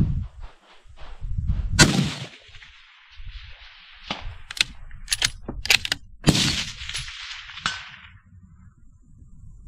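Several rifle shots, some closer and louder, some fainter and farther off. The loudest crack comes about two seconds in and another near the six-second mark, each followed by a long echoing tail, with a quick run of sharper, fainter cracks between them.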